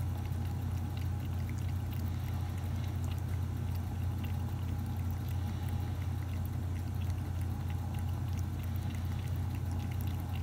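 A cat lapping water from a stainless steel bowl, small quick wet laps over a steady low hum.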